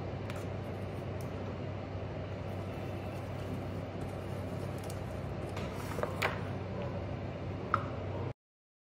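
Steady low kitchen hum with a few light clicks and taps as idli moulds are handled and set down on the counter. The sound cuts off abruptly near the end.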